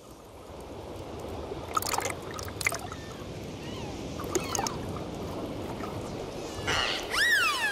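Dolphins heard underwater over a steady wash of water noise. A few short bursts of clicks come about two seconds in, faint whistles follow in the middle, and near the end there is a run of loud whistles that rise and fall.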